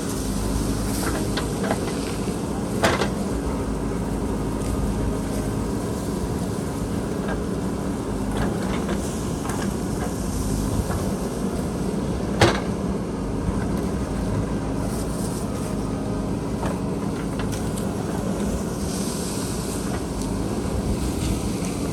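JCB backhoe loader's diesel engine running steadily while digging, with a few sharp metallic knocks, the loudest about three and twelve seconds in.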